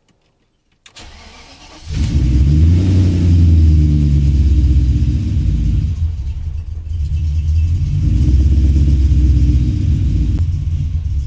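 BMW E34 530i V8 starting from cold: the starter cranks for about a second, the engine catches about two seconds in and flares up, then settles into an idle that dips and rises a little. It is the first start after the idle air control valve was cleaned, and the owner finds the idle better.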